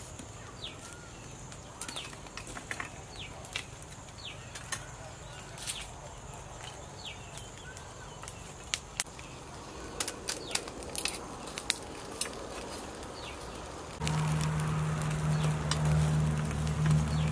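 Metal tongs clicking and scraping against a foil-wrapped parcel and the rebar grill of a clay charcoal stove, in irregular sharp taps. A bird's short falling chirp repeats about once a second behind it, and about three-quarters of the way through a low steady hum starts up.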